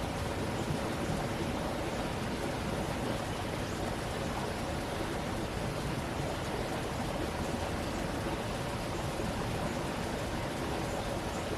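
A stream of running water, a steady, even rush with no change in level.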